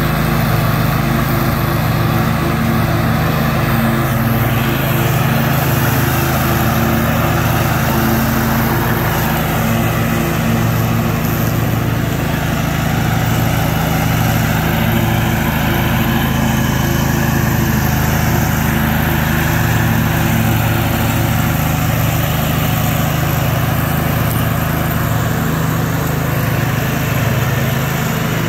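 Snapper Pro 52-inch walk-behind mower running steadily while it cuts grass, its engine holding an even note throughout.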